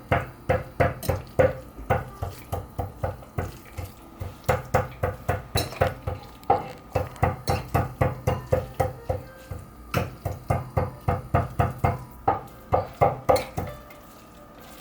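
Sliced beef being mixed in a wet marinade of soy sauce, wine and sugar: quick squelching strokes, about four a second, with short pauses, to spread the marinade evenly. It stops about a second before the end.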